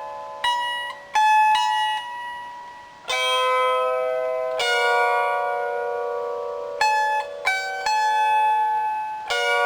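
A lyre plucked slowly, playing a melody of single notes and small chords. Each note is left to ring into the next, with no low bass notes.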